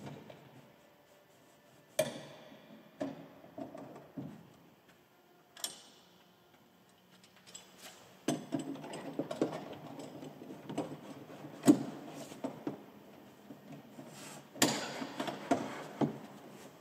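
Hand work on a corn head's plastic hood and its metal locking lever: scattered sharp clicks and knocks, then a busier stretch of small scrapes and rattles from about eight seconds in as the lever is fitted into its bracket.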